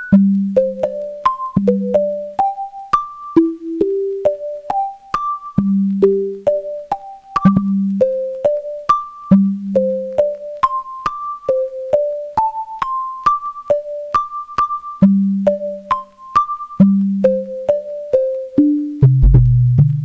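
Korg Volca synthesizer playing a sequenced melody of short, plucked electronic notes, each starting with a sharp click, over a recurring low note. Deeper bass notes join near the end.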